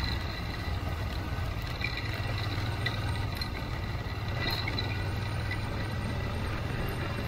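Honda Transalp 700 motorcycle engine running at a steady pace on a dirt track, with tyre and wind noise and a few faint ticks.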